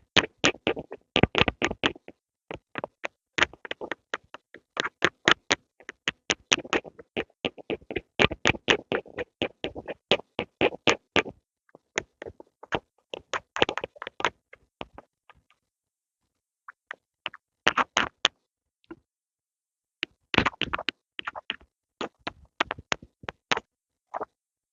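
Close-miked pencil on paper: quick runs of short, crisp strokes, several a second, broken by pauses, with a longer pause about two-thirds of the way through.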